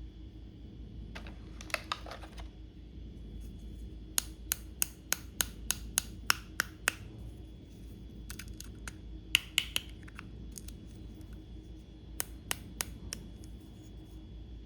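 Sharp clicks and taps of small plastic toy doctor-set pieces being handled, with a brief rustle early on and an even run of about ten clicks, roughly three a second, in the middle, then a few scattered clicks.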